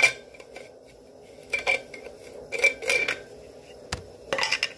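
Stainless steel vacuum flasks and their caps being handled: several sharp metallic clinks and taps, some ringing briefly.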